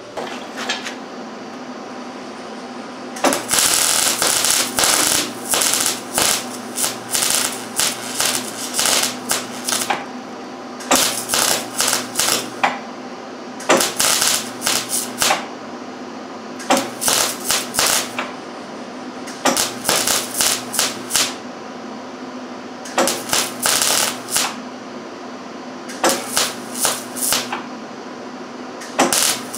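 An electric welding arc crackling in a series of short bursts, about nine beads started and stopped a second or two apart: a stitch weld filling a wide gap in a steel bracket. A steady hum runs underneath.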